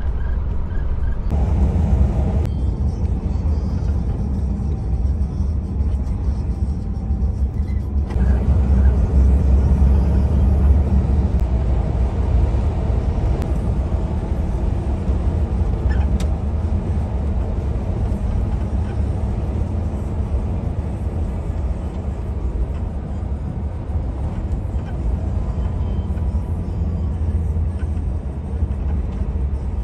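Truck driving on the highway, heard from inside the cab: a steady low rumble of engine and road noise.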